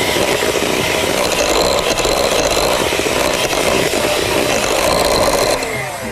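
Electric hand mixer running steadily, its beaters whisking butter, sugar and egg cake batter in a glass bowl. Near the end the motor stops and its pitch falls as it winds down.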